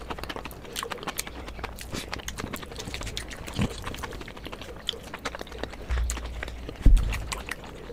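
Close-miked chewing of Indian chaat topped with crisp sev, with many small crackles and wet mouth sounds. A single louder thump comes near the end.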